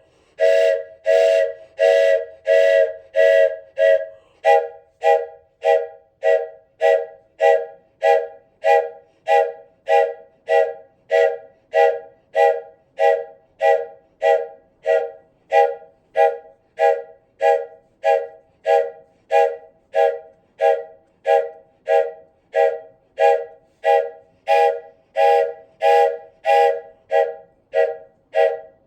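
Wooden train whistle blown in short, evenly spaced toots, a little under two a second, each sounding several pitches together as a chord. The first few toots are longer, then they settle into a steady rhythmic pattern.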